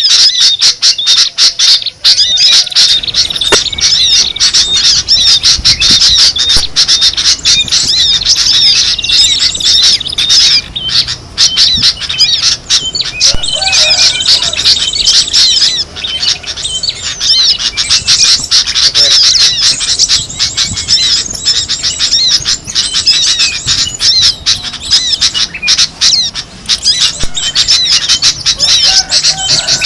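A dense, unbroken chatter of many small songbirds calling over one another with rapid high chirps and squawks. It is a bird-lure (pikat) recording, played to attract wild birds.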